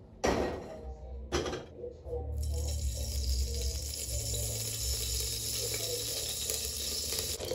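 Two sharp knocks, the first about a quarter second in and the second just over a second in. From about two seconds in, a kitchen tap runs steadily into the sink.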